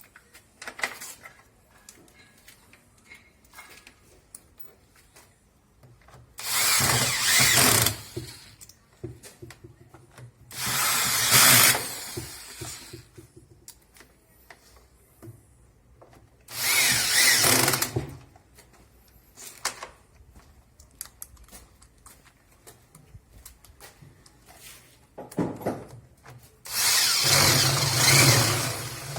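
A power drill or electric screwdriver running in four short bursts of one to three seconds, with faint clicks and handling between them, as it drives bolts back into the washing machine's tub during reassembly.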